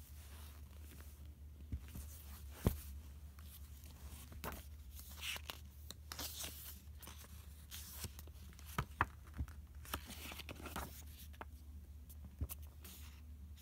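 Paper journal pages being turned and handled: scattered rustles and soft taps, with a few sharper knocks, over a steady low hum.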